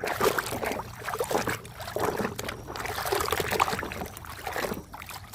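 Water splashing and sloshing in uneven bursts as muddy toy vehicles are washed by hand in clean water.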